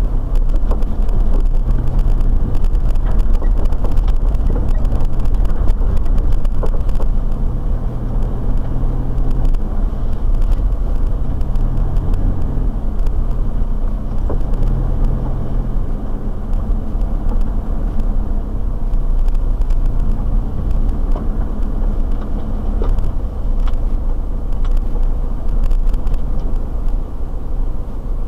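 Four-wheel drive driving slowly along a rough dirt track: engine and drivetrain running with the tyres rumbling, heard from inside the cabin as a steady low rumble.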